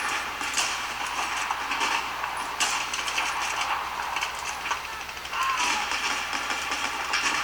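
2013 Alienware 17 laptop's vent fans running noisily: a continuous hissing whoosh that rises and falls a little, with a few sharp clicks over it.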